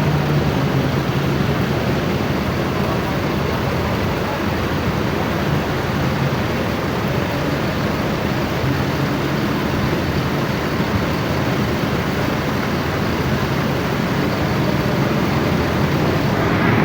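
Tour bus diesel engines running steadily, under an even hiss.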